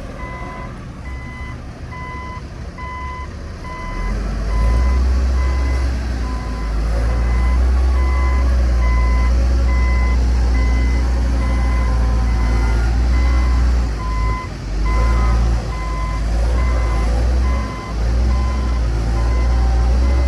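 A heavy construction vehicle's back-up alarm beeping steadily, about two beeps a second, over a big diesel engine running hard; the engine gets louder about four seconds in and eases off briefly twice near the end.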